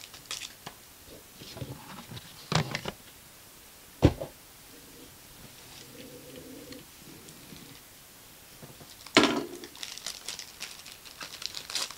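Foil trading-card pack being handled on a wooden table: a few light taps and rustles, a single sharp knock about four seconds in, then from about nine seconds a loud crinkling rip as the foil wrapper is slit open, with more crinkling after.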